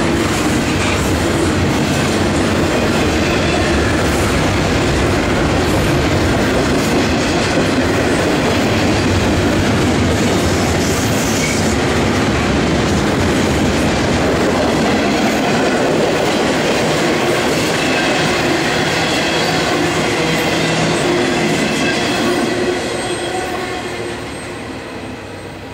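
Double-stack container cars of a freight train rolling past with a steady rumble and clatter of steel wheels on the rails. The sound fades over the last few seconds as the end of the train goes by.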